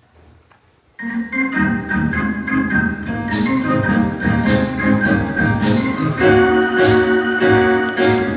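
Organ music starting abruptly about a second in, with sustained chords; a steady beat of sharp percussion hits joins about three seconds in.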